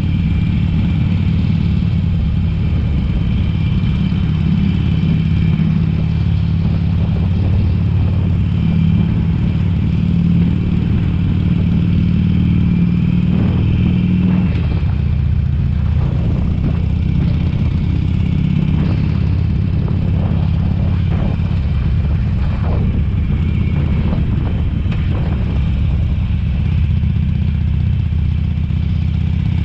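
2007 Harley-Davidson Sportster 883 Custom's air-cooled V-twin engine running as the bike rides at town speed, heard from the rider's helmet. The engine note drops lower about halfway through.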